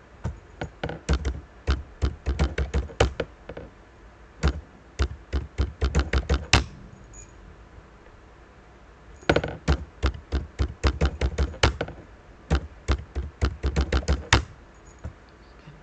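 Computer keyboard typing: quick runs of key clicks in four bursts with short pauses between them, as a username and password are typed at a login prompt.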